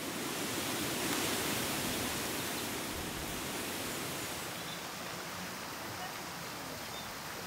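Wind rushing through the leaves of trees, swelling about a second in. About halfway through, the steady splash of a fountain's falling water takes over.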